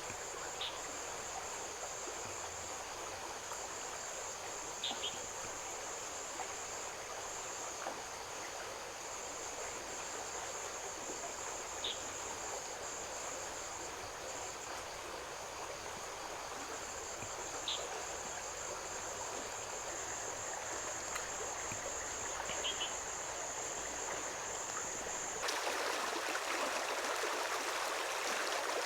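Insects trilling steadily and high, over a low outdoor wash, with a few brief chirps. About 25 seconds in, the trill cuts out abruptly and a louder, steady rush of running water takes over.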